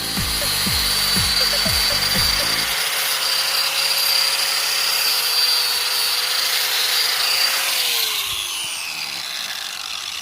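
Small handheld power grinder running at speed on a metal brake caliper with a steady high whine, then spinning down with a falling pitch near the end. Background music with a beat plays under it for the first few seconds.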